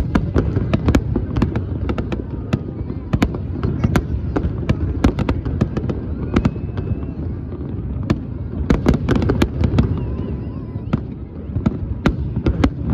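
Fireworks display going off: many sharp, irregular bangs and crackles, often several a second, over a continuous low rumble of distant bursts.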